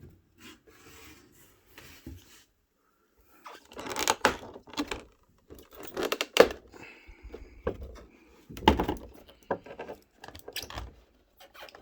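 Handling noise of unpacking a scale helmet: irregular bursts of rustling, scraping and light knocks from the box and its wrapping, with short quiet gaps between.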